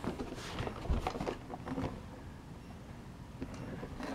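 Handling noise from an RC truck's plastic body shell being lifted off its chassis: a few light clicks and taps of hard plastic in the first two seconds, then quieter rustling.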